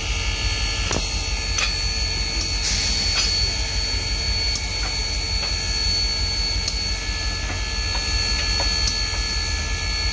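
Union Pacific Big Boy 4014 steam locomotive standing with a steady low rumble and a steady high tone, as its front coupler is swung out by hand, giving a few scattered metal clinks.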